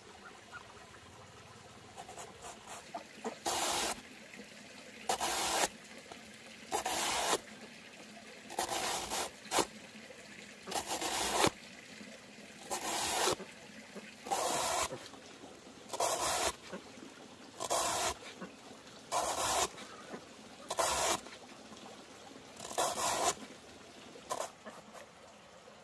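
A large knife slicing a banana stem into thin rounds. Each stroke is a short noisy cut about half a second long, coming roughly every second and a half from a few seconds in.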